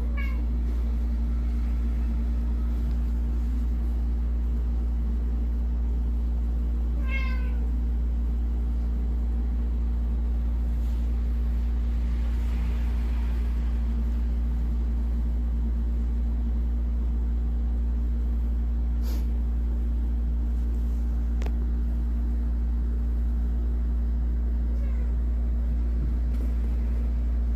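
A cat meowing, a short call at the start and another about seven seconds in, with fainter ones near the end, over a steady loud low hum.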